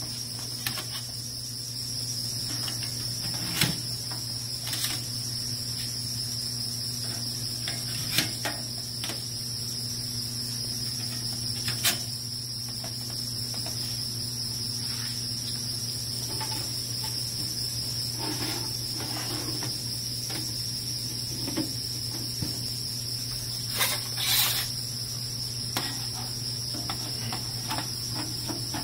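Galvanized sheet-metal duct sections handled and fitted together by hand: scattered light metallic clanks and rattles, the sharpest about 4, 8 and 12 seconds in, and a longer rattle lasting about a second near 24 seconds. Under them runs a steady high-pitched whine with a low hum.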